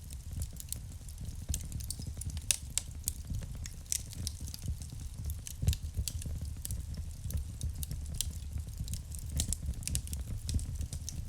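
Wood fire crackling in a fireplace: irregular sharp pops and snaps over a steady low rumble of the burning logs.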